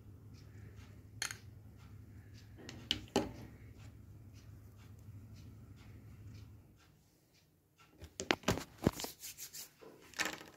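A spoon scraping and knocking against a glass jar and a mixing bowl as thick cream is scooped and spooned in, with a few light knocks early on and a quick run of clicks and clinks near the end, over a faint low hum that stops about seven seconds in.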